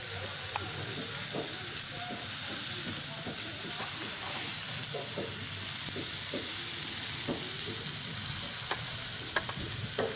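Whole head-on prawns sizzling on a hot grill grate, a steady hiss with a few sharp crackles near the end.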